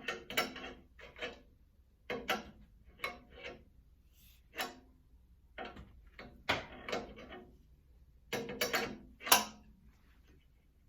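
Irregular metal clinks and knocks of hand tools against the steel guard of a stomp shear as it is being unbolted, with short bursts a second or so apart and quiet gaps between them.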